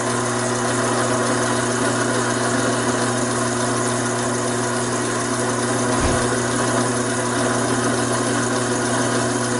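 Taig micro lathe running steadily with a spring-mounted parting blade cutting deep into a 7/8-inch 1018 mild steel bar: a constant motor hum under the cutting noise. There is a brief low bump about six seconds in.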